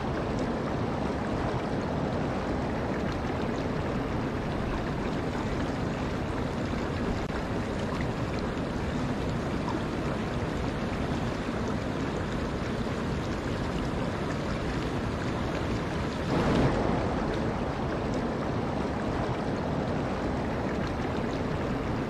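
Fast-flowing river water rushing steadily, an even broad rush with no pauses; it swells briefly about three quarters of the way through.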